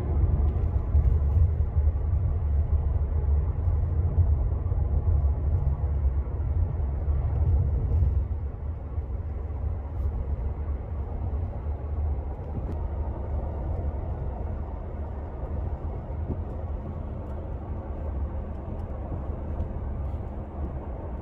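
Steady low rumble of a car driving along a road, heard from inside the cabin: engine and tyre noise, a little quieter after about eight seconds.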